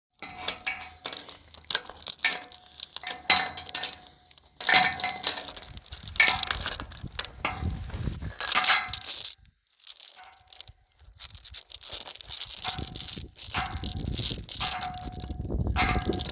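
Heavy metal chain rattling and clinking, its links knocking together in irregular bursts with a light metallic ring. There is a short pause about ten seconds in before the rattling resumes.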